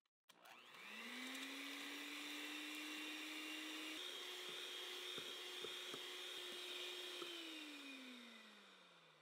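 Electric hand mixer whirring as its wire beaters whip heavy cream in a stainless steel bowl. The motor whine rises as it spins up about half a second in, runs steadily with a few light ticks, then falls away as the mixer winds down near the end.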